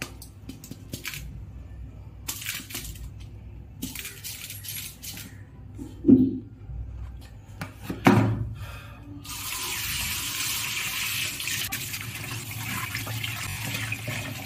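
Tap water running steadily into a stainless steel sink, rinsing an emptied plastic filter cartridge, starting about nine seconds in. Before that come light rattles of loose carbon granules and two loud knocks about two seconds apart.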